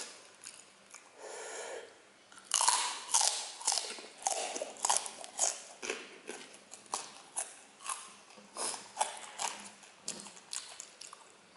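Close-up eating of chili-coated chicken feet: biting and chewing with crisp crunches, starting a couple of seconds in and coming irregularly about twice a second.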